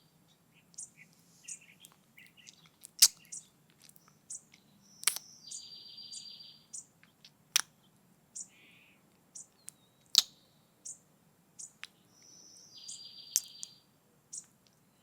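Background birdsong of short high chirps and trills, with close-up kissing sounds: about five sharp lip smacks a couple of seconds apart, louder than the birds.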